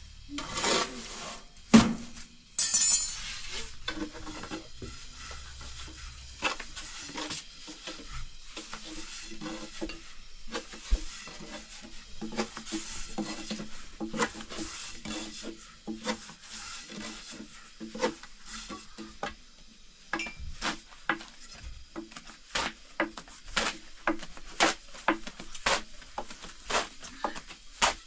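Thin wooden rolling pin rolling out flatbread dough on a floured wooden board: a rubbing, scraping sound broken by many light wooden knocks and clacks as the pin is rolled and tapped on the board, the knocks coming more often near the end.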